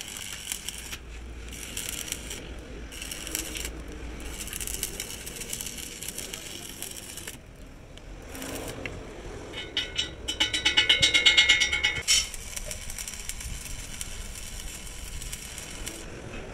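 Arc of a stick (manual metal arc) welder laying a repair bead on a steel truck wheel rim, crackling and sputtering in runs with short breaks. About ten seconds in it grows louder for a couple of seconds, with rapid, regular pulses.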